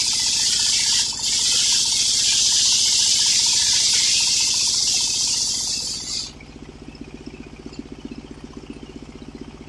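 Circular sawmill blade cutting through an old coconut-palm log with a loud, steady hiss. About six seconds in the cut ends abruptly, leaving only the sawmill's drive engine running with a low, pulsing sound.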